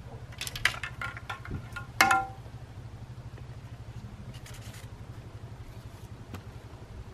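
Car engine idling with a steady low hum, and light clicks and rattles of fishing tackle being handled in the first couple of seconds, with a short squeak about two seconds in.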